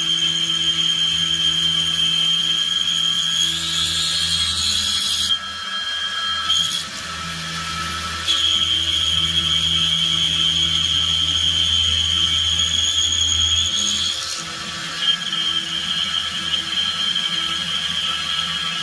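Vertical milling machine with an end mill cutting a slot in an aluminum plate: a steady high whine over the motor hum. The whine breaks off for a couple of seconds about five seconds in, and again briefly near fourteen seconds.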